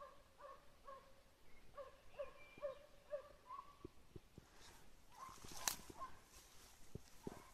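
Hunting dog baying faintly in the distance, a run of short barks about two or three a second with a brief pause midway: a hound giving voice while working a hare. A few faint clicks and one sharper crack about two-thirds through.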